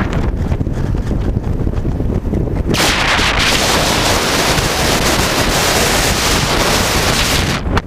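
Wind rushing over the microphone of a moving motorcycle, with a low rumble underneath. The hiss grows much louder about three seconds in and falls away sharply near the end.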